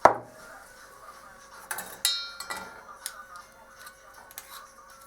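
A spoon knocking and clinking against a pot while honey is spooned in for lozenge syrup. One sharp loud knock comes right at the start and rings briefly. Lighter clinks follow every half second or so, one of them ringing about two seconds in.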